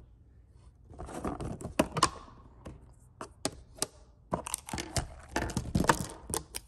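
Handling of a plastic toy jar: its screw-top lid unscrewed, then plastic lids and small toy pieces set down on a tabletop, giving a scatter of sharp clicks, taps and rustles in two clusters.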